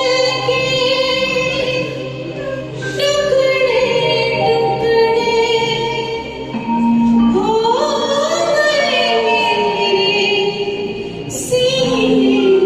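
Music from a Hindi film song: a melody of long held notes, some sliding up and down in pitch, over soft backing.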